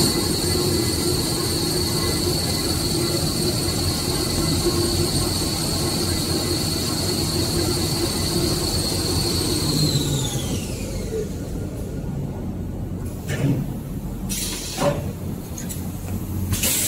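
Tissue paper rewinding machine running with a steady high-pitched whine over a lower hum; about ten seconds in the whine falls in pitch and dies away as the machine slows to a stop. A few sharp knocks follow near the end.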